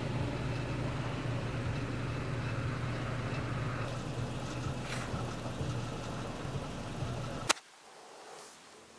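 Steady low mechanical hum, like an idling engine, that cuts off abruptly with a click about seven and a half seconds in, leaving quiet room tone.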